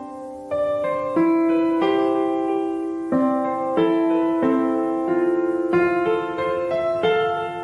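Background piano music: a gentle keyboard melody with chords, a new note or chord about every half second.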